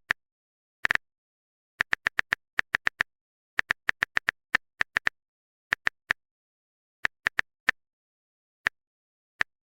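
A run of about thirty short, identical digital clicks in uneven clusters, with dead silence between them, like a typing sound effect.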